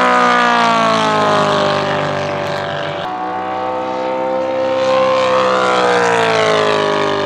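Gas engine and propeller of a large-scale radio-controlled P-47 Thunderbolt model running at high power in fast low flybys, the pitch dropping as the plane passes. Near the end a second pass brings the pitch up and then down again.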